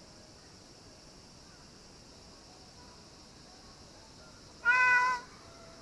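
A single drawn-out animal call of steady pitch, about half a second long, near the end, over a faint steady high hiss.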